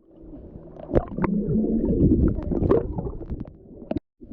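Muffled gurgling and sloshing of water around a camera in a waterproof housing, with scattered clicks and knocks. The sound drops out briefly near the end.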